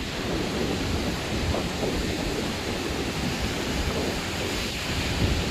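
Wind buffeting the microphone with a low, uneven rumble, over the steady wash of surf.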